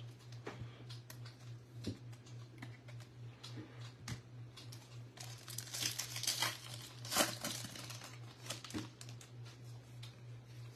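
A 2024 Bowman Baseball hobby pack's foil wrapper being torn open, crinkling loudest about six to seven seconds in, with the stiff cards clicking and sliding against each other as they are handled. A low steady hum sits underneath.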